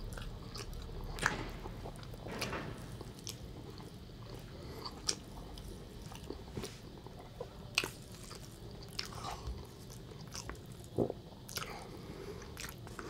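A person chewing meat pulled off a braised shank bone, with scattered short wet mouth clicks and lip smacks.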